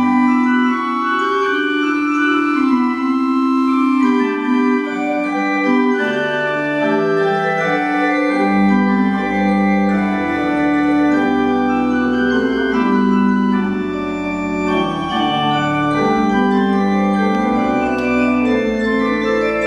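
Church organ playing slow, held chords, with low bass notes coming in about eight seconds in.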